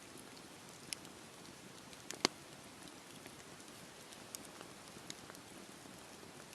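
Campfire burning with a steady low hiss and scattered crackles and pops, one sharper snap about two seconds in.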